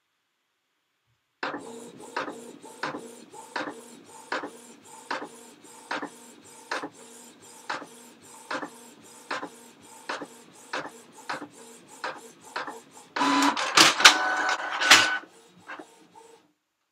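Printer running a print job: a steady mechanical hum with a regular click about one and a half times a second, starting about a second and a half in. Near the end comes a louder, busier stretch of mechanism noise for about two seconds before it stops.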